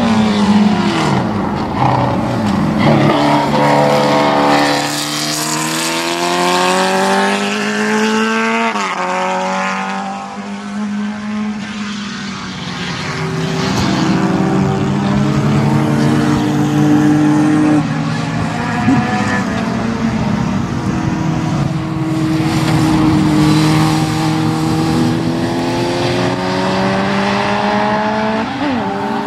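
Race car powered by a Suzuki Hayabusa inline-four motorcycle engine, heard from trackside, revving hard with its pitch climbing through the gears and dropping sharply as it brakes and shifts down, about eight seconds in and again near the end.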